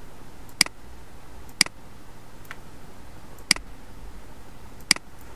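Four sharp computer mouse clicks, spaced one to two seconds apart, with a fainter click between the second and third, over a steady low hiss.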